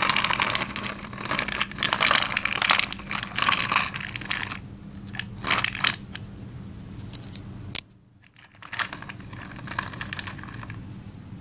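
Small plastic toy car pushed by hand across rough concrete, its wheels rolling and scraping in uneven bursts, loudest in the first few seconds, with a few sharp clicks and a brief gap about eight seconds in.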